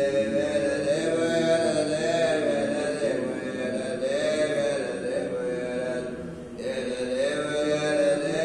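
Men chanting Islamic dhikr in a steady, melodic recitation, with a short break for breath about six seconds in.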